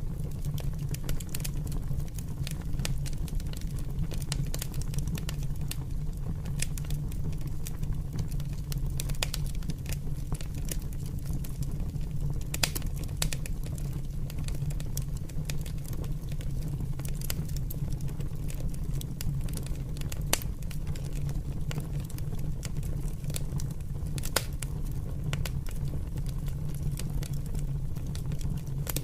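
Open fire burning: a steady low rumble with frequent sharp crackles and pops scattered at irregular intervals.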